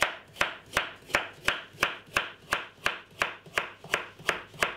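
Knife slicing a peeled carrot into rounds on a wooden chopping board: a steady rhythm of crisp knocks, about three a second.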